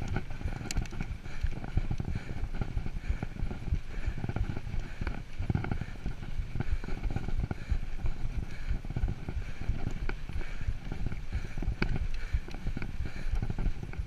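Mountain bike riding on a dirt singletrack: tyres rolling on the dirt, the bike rattling with many small, irregular knocks over bumps, and wind rumbling on the handlebar-mounted camera's microphone.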